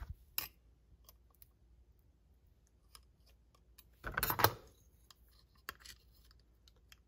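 Handling clicks from a distributor and a screwdriver, with a brief metal clatter about four seconds in as the screwdriver is picked up off a concrete floor.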